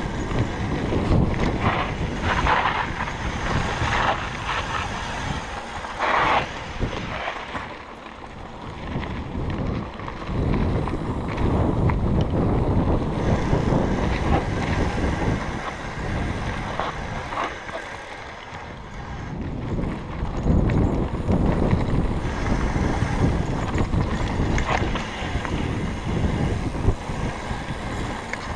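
Wind buffeting the microphone over the rattle and rumble of a Kona Process 134 mountain bike descending a dirt trail, rising and falling in loudness.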